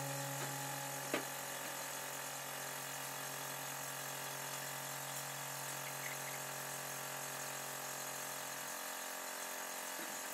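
Quiet background music holding a steady low chord between phrases, over a steady hiss, with a single click about a second in; the lowest note drops out near the end.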